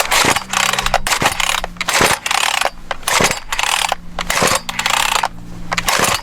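Harbor Freight chainsaw's recoil starter being yanked over and over, a rasping whir of cord and pawls about once a second, without the engine catching. The choke has not been set.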